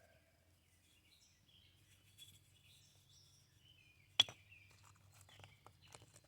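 Faint bird chirps and short whistles in the background, broken by one sharp click about four seconds in and a few smaller clicks near the end.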